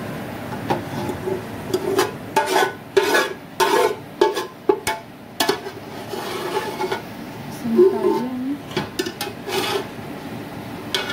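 Metal slotted skimmer scraping and clinking irregularly against the inside of an aluminium pot as fried onions are gathered and lifted out of the hot oil.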